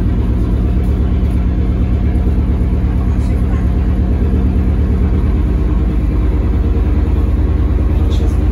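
The V8 petrol engine of a LiAZ-677MB city bus running steadily with a deep, even hum.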